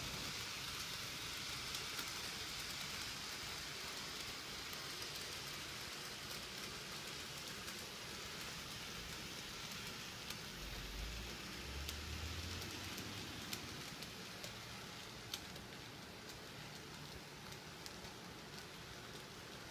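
HO scale Bachmann SD45 model diesel locomotive running on sectional track, a steady high whir from its motor and wheels with faint clicks as it rolls over the rail joints.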